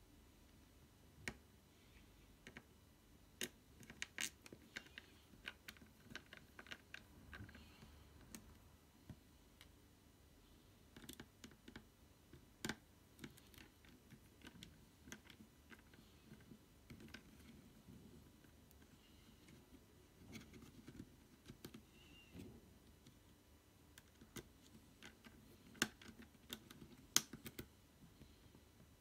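Small screwdriver working at the screws of a Packard Bell Dot S netbook's chassis: faint, irregular clicks and scratches of the tip on screw heads and plastic, with a couple of sharper ticks near the end.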